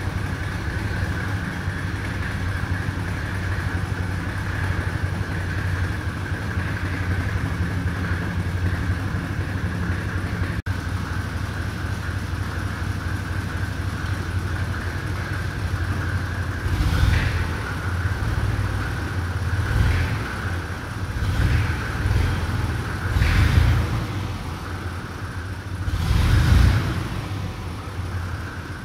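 Fendt Farmer 2 tractor's diesel engine running steadily, then revved up briefly about five times in the second half, while the tractor is eased into position to hitch the winch.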